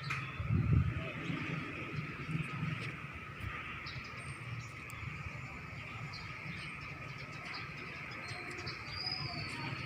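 Steady outdoor chorus of insects, crickets or similar, with a few short bird chirps and a brief whistled bird call near the end. A low rumble runs underneath and is loudest about half a second in.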